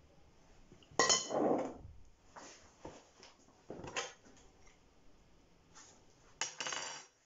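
Kitchenware clattering on a counter: a metal serving spoon clinking against a glass bowl and plate, and a stainless steel bowl set down. It comes in three bursts, about a second in, around four seconds in and near the end.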